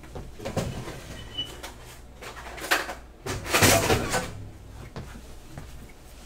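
Someone rummaging for an object: scattered knocks and clunks, with a louder scraping rustle lasting under a second about three and a half seconds in.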